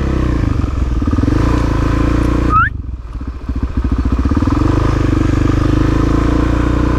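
Suzuki DR-Z400SM's single-cylinder four-stroke engine running on the move. About two and a half seconds in, a short rise in pitch is followed by a brief drop in sound before the engine note picks up again.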